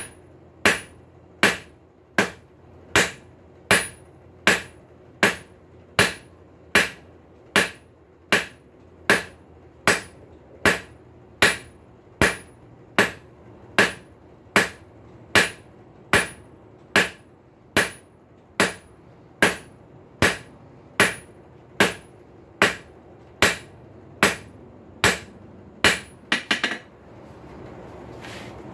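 Blacksmith's hand hammer striking red-hot high-carbon steel on an anvil, drawing out a square taper for a punch. The blows are steady, about one every three-quarters of a second, each with a short, bright ring off the anvil. Near the end a quick flurry of lighter taps, and then the blows stop.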